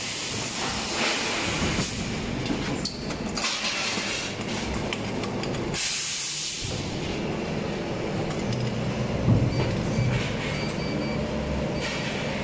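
Injection moulding machine running a cycle on an 8-cavity PLA cup mould: a steady machine hum with short bursts of air hiss, the loudest about six seconds in while the mould stands open.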